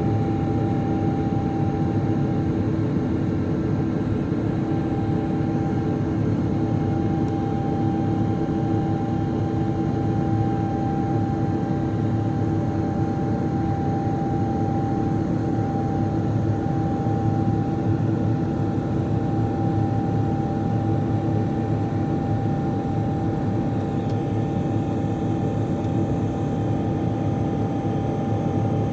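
Boeing 777-200LR's GE90 turbofan engines during the climb after takeoff, heard inside the cabin: a steady drone with a constant whine over it.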